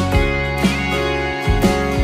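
Background music: a gentle tune on plucked acoustic guitar over a bass line, with notes struck about twice a second.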